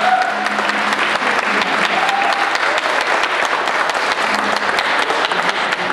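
Audience applauding: a steady, dense clapping from a seated crowd at the end of a song.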